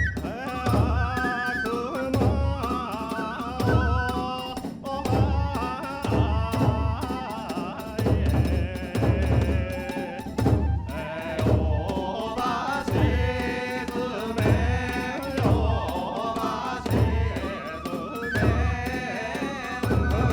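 Kagura hayashi accompaniment: a big drum beating about once a second under a wavering melodic line.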